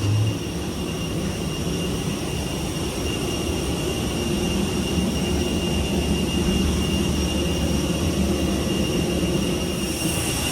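Steady cabin noise inside an Airbus A320: a low hum under the rush of air, with several constant high-pitched whine tones.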